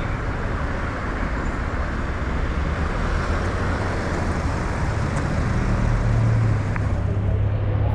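Road traffic on a busy avenue: a steady wash of passing vehicles and tyre noise. A low engine drone from a heavy vehicle grows louder in the second half.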